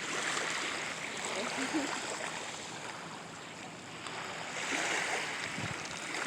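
Steady rush of flowing water, like a small stream, swelling slightly about five seconds in.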